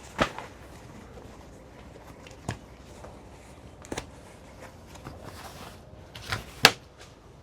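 Several sharp knocks and clacks, the loudest two close together near the end, over a steady rushing noise.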